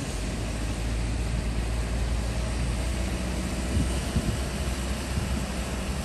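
Steady low engine rumble and tyre hiss inside the cabin of a car driving on a wet highway in drizzle.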